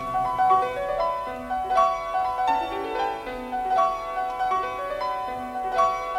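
Instrumental theme music: a melody of quick, plucked or struck piano-like notes running up and down.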